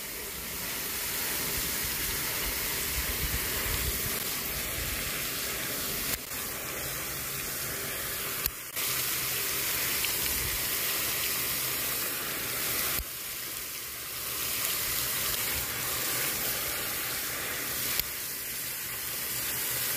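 Lake fountain throwing a tall jet of water, a steady hiss of spray falling onto the water's surface.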